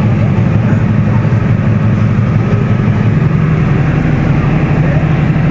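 Engine of a river passenger launch running steadily: a loud low drone whose pitch drops a little about three seconds in.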